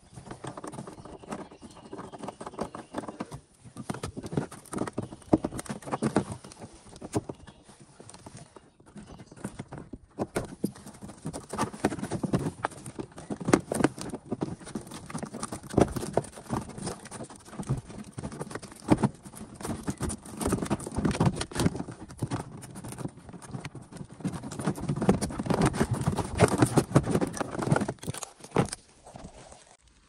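Irregular plastic clicks, knocks and rustling from gloved hands working the connectors and plugs of a 2008 Opel Zafira's rear fuse box. The handling gets louder near the end.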